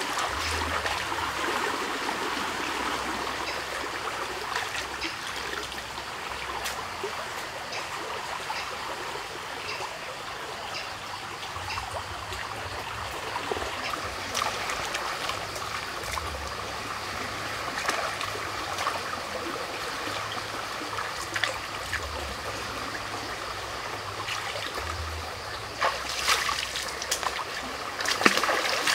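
Muddy forest stream flowing with a steady rush of water. A few splashes near the end as hands work in the water.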